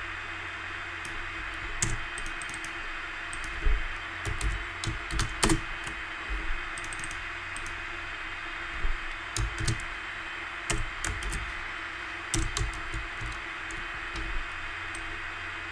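Computer keyboard being typed on: scattered single keystrokes and short runs of clicks, over a steady background hiss.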